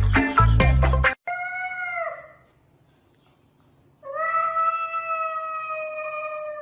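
Loud music cuts off sharply about a second in. A cat then yowls: a short call that drops in pitch at its end, and after a pause a long, steady yowl from about four seconds in, the warning yowl of a cat squaring off against another cat.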